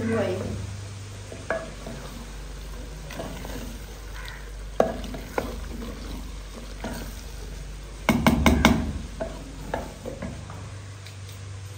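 Wooden spoon stirring a thick vegetable curry in an earthenware pot, scraping and knocking against the clay, over a faint sizzle of cooking. A quick flurry of knocks about eight seconds in is the loudest moment.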